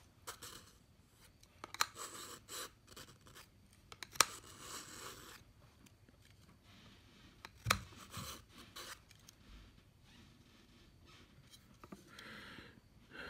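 Knife blade drawn repeatedly through a Smith's Edge Pro pull-through sharpener: several short scraping strokes of steel on the sharpening slots, with a few sharp clicks, the loudest about two-thirds of the way in.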